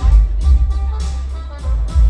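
Christmas fireworks show soundtrack music playing loudly, with deep low booms and rumble from firework bursts underneath.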